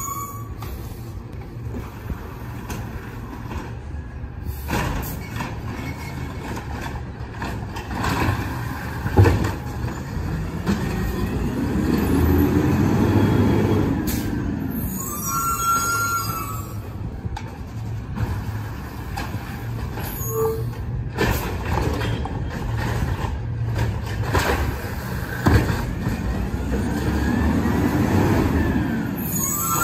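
Peterbilt 320 refuse truck with an Amrep side loader working the street: its diesel engine rises and falls twice in slow swells. There are short high squeals and a sharp knock about nine seconds in.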